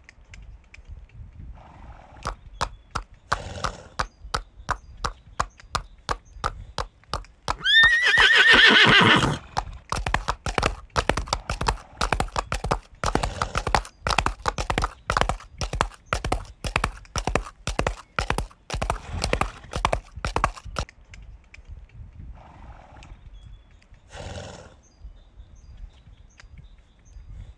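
A horse's hooves clopping in a steady run of sharp beats on hard ground, with one loud whinny about eight seconds in. Short breathy blows from the horse come near the start and again near the end, after the hoofbeats stop.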